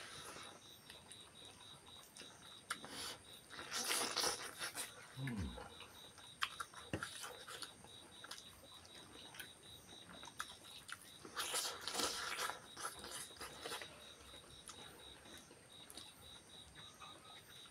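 Close-up eating by hand: chewing and mouth smacking with scattered small clicks, and two louder bursts of rustling a few seconds in and again past the middle. A faint, fast, even ticking runs underneath.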